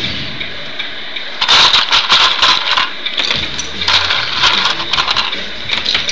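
Hydraulic packer of an RC garbage truck compacting plastic Lego bricks. A steady whir of the hydraulics, then from about a second and a half in, loud irregular clattering and knocking as the blade sweeps the bricks through the hopper.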